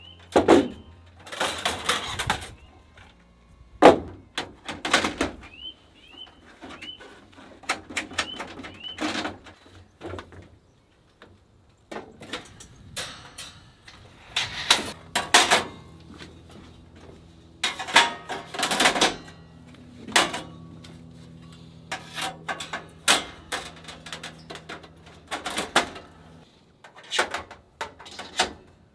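Irregular clacks, knocks and rustling of camping gear being handled and set up, with a few short high chirps a few seconds in.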